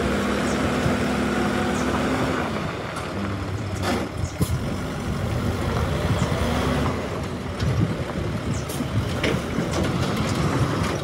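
Diesel engine of a Hyundai heavy tractor unit running as the truck pulls a semi-trailer away at low speed. A steady engine tone for the first two and a half seconds gives way to an uneven rumble, with a short burst of noise about four seconds in.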